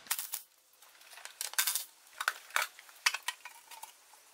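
Irregular metallic clinks and clicks, a dozen or so sharp knocks: bolts, tool and metal parts handled as the seat and tank of a small motorbike are unbolted and lifted off.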